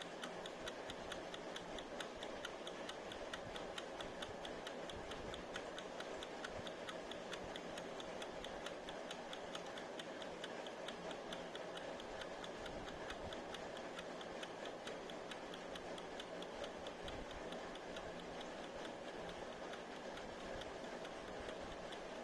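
Mechanical wind-up kitchen timer ticking, a rapid, even run of clicks that keeps going without the bell ringing.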